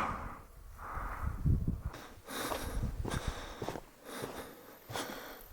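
A hiker breathing hard through the nose and mouth while climbing uphill, with scuffing and rustling knocks from about two seconds in.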